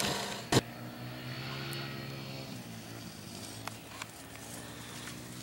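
Faint, distant ATV engines droning, their pitch slowly rising and falling, after a sharp click about half a second in.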